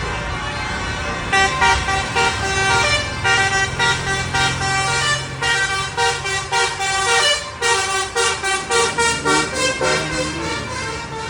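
Bus 'telolet' Basuri melody horn playing a quick tune from about a second in: short rhythmic blasts of multi-tone horn notes stepping between pitches, over the bus engine's low running.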